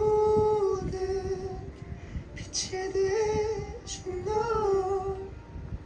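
A high voice singing long, held and gliding notes, with music behind it.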